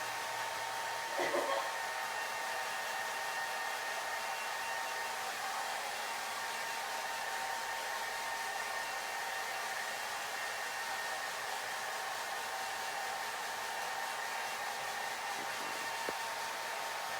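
Hair dryer running steadily, a constant blowing hiss with a motor whine. About a second in there is a brief louder sound, and a small click near the end.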